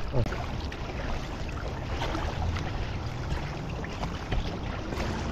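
Water lapping and splashing against a kayak's hull as it is paddled along, with small scattered drips and splashes, over a low rumble of wind on the microphone.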